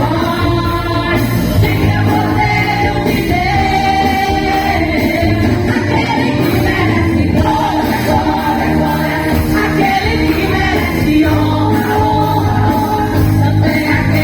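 Women's choir singing a Christian song with instrumental accompaniment, the voices holding long sung notes over a steady bass.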